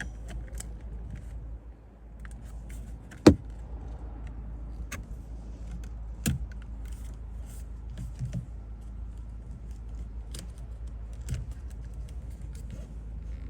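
Scattered clicks, taps and knocks of hand tools and plastic steering-wheel parts being handled, with one sharp knock about three seconds in the loudest, over a low steady hum.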